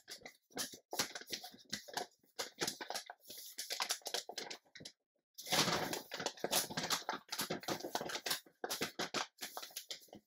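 Stiff kraft paper bag being folded and handled along its creases: irregular crinkling and rustling of paper, with a brief pause about five seconds in and then a longer rustle.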